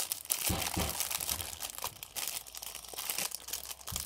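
Clear cellophane gift wrapping crinkling and crackling as hands grip and pull at it to open it.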